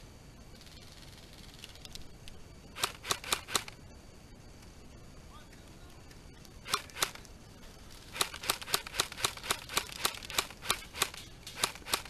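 Airsoft gun firing sharp single shots: a quick group of four, then a pair, then a fast string at about five shots a second.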